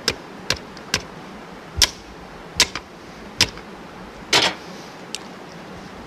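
Sharp metal clinks and taps from hand tools on a riding-lawnmower transmission as it is put back together, about eight at uneven intervals, one a little longer about four seconds in.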